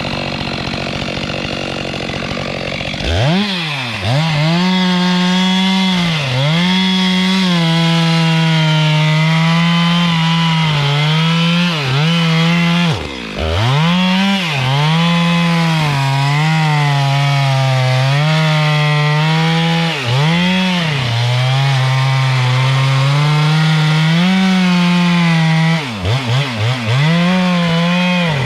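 Two-stroke chainsaw cutting wood at high revs. After a rough, noisy first three seconds its engine tone comes in strongly, and the pitch dips and recovers again and again as the chain loads up in the cut.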